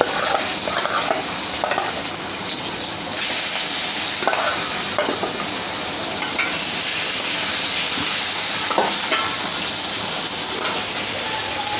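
Marinated katla fish pieces sizzling as they shallow-fry in hot oil in an aluminium kadhai: a steady hiss that grows louder about three seconds in, with a few light touches of a spatula in the pan.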